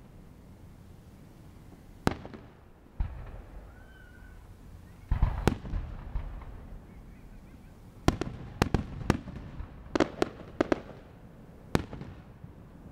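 Aerial fireworks going off: single bangs about two, three and five seconds in, then a quick run of sharp bangs from about eight to eleven seconds.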